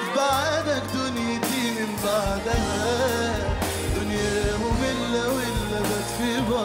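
A male singer's voice bending through an ornamented melody, live with a band. A bass line comes in just after the start, and drums join about two seconds in.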